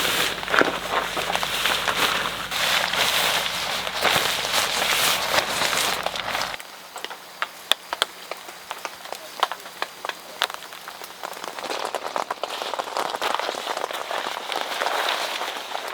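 Light rain pattering, dense at first, then after a sudden change about six and a half seconds in, quieter with scattered single drops ticking, building back to a steady patter near the end.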